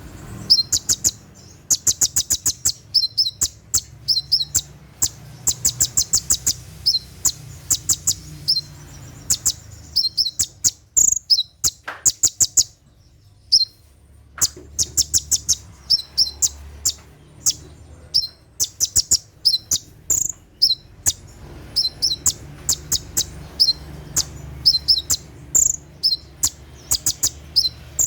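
Olive-backed sunbird (kolibri ninja) singing its rapid 'tembakan' song: fast runs of sharp, high chirps broken by short gaps, with a longer lull about halfway through.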